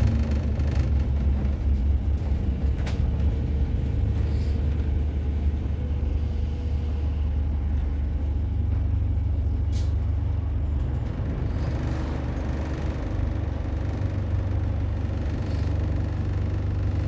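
Double-decker bus heard from inside: a steady low engine and road rumble as it slows and stands at traffic lights. Two sharp clicks, about three and ten seconds in, and a brief hiss about twelve seconds in.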